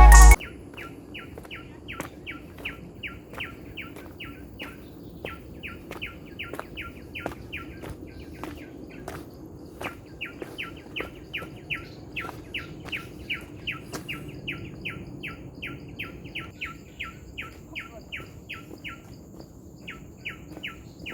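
A bird calling in a fast, steady series of short falling notes, about three or four a second, pausing briefly near the end. A faint thin high insect hum comes in late.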